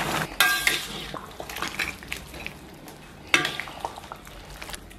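Metal clinks and clanks against a stainless-steel cooking pot, as utensils work the stewed lamb and noodles; a sharp clank comes just after the start and a louder one a little after three seconds, with lighter ticks between.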